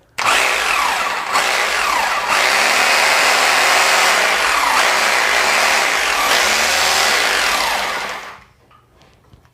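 CHESTON 26 mm 850 W corded rotary hammer drill running free in hammer-drill mode. It is switched on just after the start, its pitch gliding as it spins up, runs steadily, and is switched off about eight seconds in, winding down.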